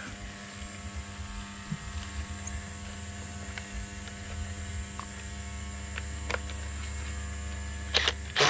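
Steady mechanical drone, then near the end a cordless 18 V impact driver on a wheel's lug nut starts hammering in two short, loud bursts.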